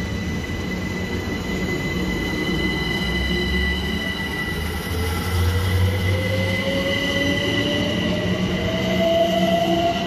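Southern Class 377 Electrostar electric multiple unit pulling out past the platform: the traction motor whine rises steadily in pitch through the second half as the train gathers speed, over steady high-pitched electrical tones and the rumble of the wheels on the rails.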